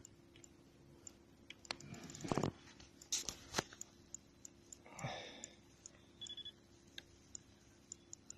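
Faint scattered clicks and a few louder knocks from the fishing rod and reel being handled on the kayak while a fish is played, over a faint steady hum. A short voice-like sound comes about five seconds in.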